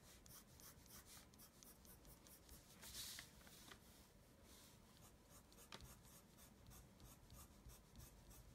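Faint scratching of a colored pencil on paper in rapid, short, repeated strokes as fur lines are drawn. The strokes are a little louder about three seconds in.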